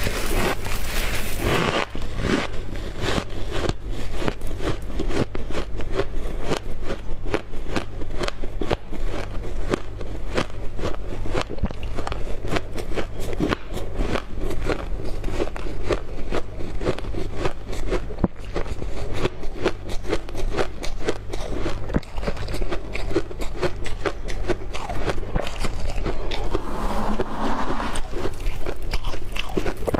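Refrozen shaved ice crunching in dense, rapid crackles as mouthfuls are bitten and chewed close to the microphone, with handfuls scraped up from the packed ice. A steady low hum runs underneath.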